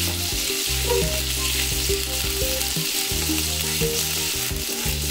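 Minced garlic and ginger sizzling in hot oil in a nonstick frying pan, stirred and pushed around with a slotted nylon spatula. Low background music plays underneath.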